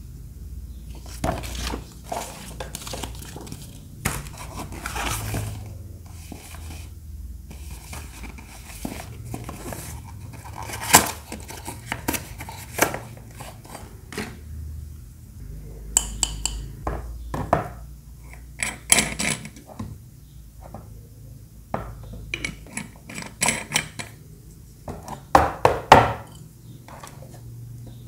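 Hands unpacking a cardboard gift box: posters and paper rustling, and irregular clinks and knocks as a glass water bottle is handled against the box. The loudest knocks come in clusters about a third of the way in, in the middle, and near the end.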